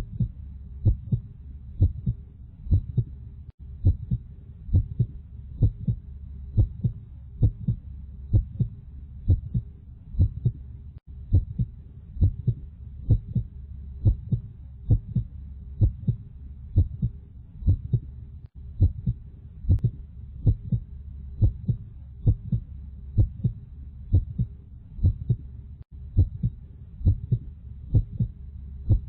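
Heartbeat sound effect: steady, evenly repeating low thumps in a lub-dub rhythm over a constant low rumble, with a brief gap about every seven seconds.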